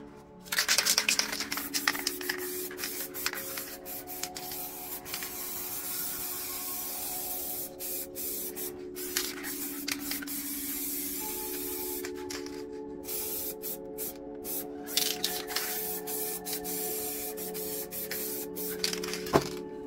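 Aerosol spray paint can spraying in long hisses, broken a little past halfway into a run of short bursts, over a steady low background music drone. A single sharp knock near the end.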